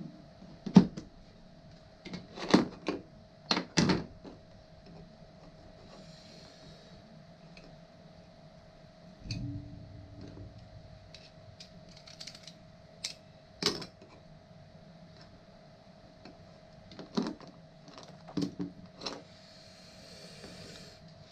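Scattered sharp knocks and clicks of hard parts being handled and fitted together, in irregular clusters with long gaps, over a faint steady hum.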